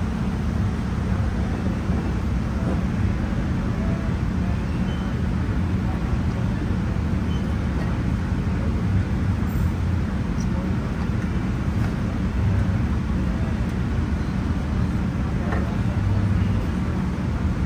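A steady low mechanical hum over even background noise, unchanging throughout, with no distinct knocks or clicks.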